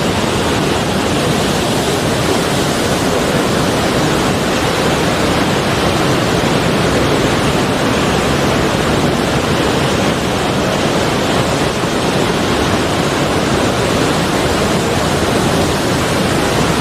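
Sea waves and surf making a steady, continuous rush, with no separate wave breaks standing out.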